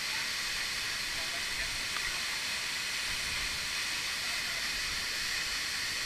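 Steady rushing hiss of a tall waterfall and the rocky stream below it.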